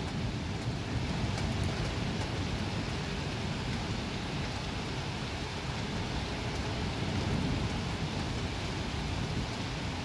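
Steady rain falling during a thunderstorm, with a faint low rumble of thunder about seven seconds in.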